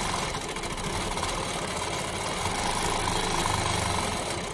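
Longarm quilting machine running steadily, its needle stitching rapidly through the quilt layers during free-motion quilting; the sound dies away near the end as the machine stops.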